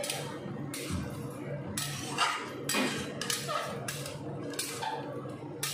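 Steel spatula scraping and clinking against a metal kadai while stirring a thick curry, in repeated strokes roughly once a second.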